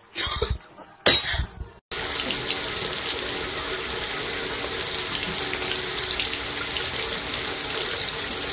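Two short loud bursts, then a bathroom mixer tap running steadily, its stream splashing into the sink basin.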